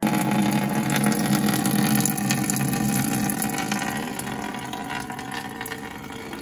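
Coolant pouring in a thin stream from the drain at the bottom of a Rolls-Royce Merlin engine's coolant pump, splashing steadily into the container below and growing gradually quieter.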